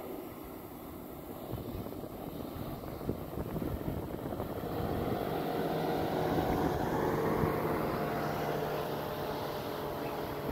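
An engine passing by: a steady hum with a few held tones that swells about halfway through and eases off near the end.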